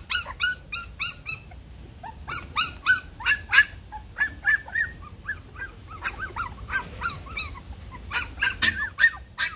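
Bắc Hà xù puppies yelping and whining over and over in short, high calls, several a second, with brief lulls. They are clamouring to be fed.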